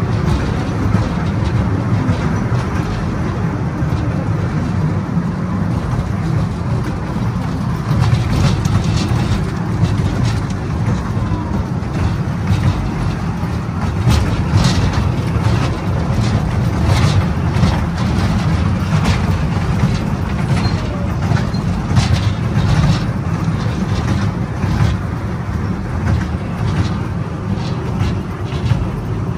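Small amusement-park kiddie train running along its narrow track, heard from a rear car: a steady low rumble with frequent rattles and clicks from the cars.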